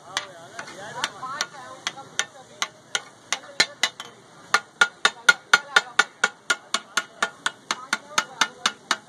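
Metal spatula blades striking a large flat iron griddle (tawa) again and again as fish katakut is chopped on it, the 'katakat' clatter the dish is named for. The strikes are uneven at first, then settle about halfway through into a steady, louder beat of about four a second.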